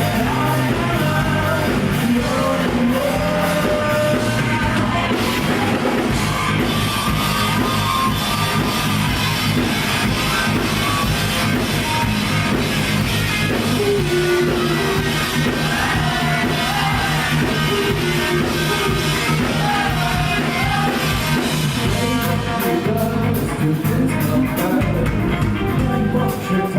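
Rock band playing live: singing over electric guitar, bass and drum kit.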